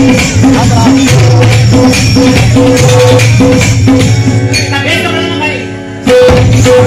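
Qawwali ensemble playing live: dholak and tabla drumming in a fast, steady rhythm under harmonium and a repeating melodic figure. About four and a half seconds in, the drums drop away to a fading held chord, then the full ensemble comes back in abruptly near the end.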